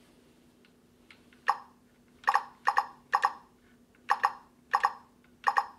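ToolkitRC M8D battery charger giving short electronic key-press beeps as its buttons are pushed to set up a charge: seven beeps starting about a second and a half in, several in quick pairs. A faint steady hum lies underneath.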